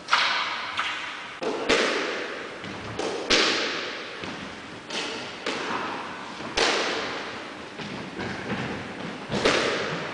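Squash rally: the ball cracking off rackets and court walls, a sharp hit every second or two, each ringing out in the court's echo.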